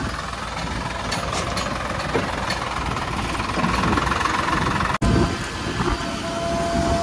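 Heavy diesel machinery running steadily, with low engine rumble and some clatter; the sound drops out for an instant about five seconds in.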